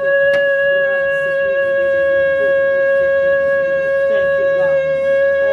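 A shofar blown in one long, steady note, with faint voices underneath.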